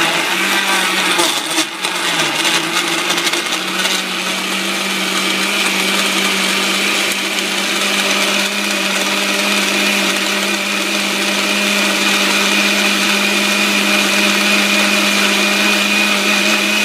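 Personal blender's motor running at full speed, pureeing frozen fruit and greens into a smoothie. Its pitch wavers and dips in the first few seconds as the frozen chunks catch, then settles into a steady whine as the mixture turns smooth.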